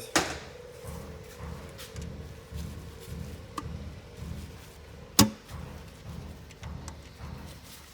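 Metal hand tools working on an engine's connecting-rod cap bolts from underneath: a sharp metallic click just after the start and one loud clink about five seconds in, over a faint low rhythmic pulsing.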